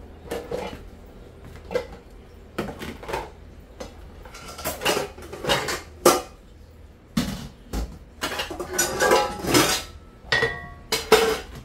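Metal pots, lids and dishes clattering and clanking as they are handled at a kitchen sink and stacked in a dish rack: a series of irregular knocks, the sharpest about six seconds in, with a short metallic ring near the end.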